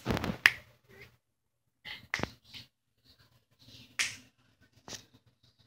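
A handful of sharp clicks and taps spread over several seconds, the loudest in a quick cluster at the start.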